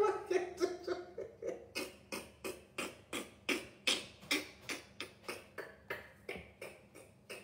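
A rapid run of hand claps, about four or five a second, growing steadily fainter, with a little laughter under the first claps.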